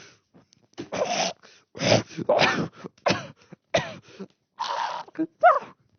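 A person's wordless, rasping vocal noises, like coughs or throat-clearing, in about five short separate bursts, with a brief rising-and-falling yelp near the end.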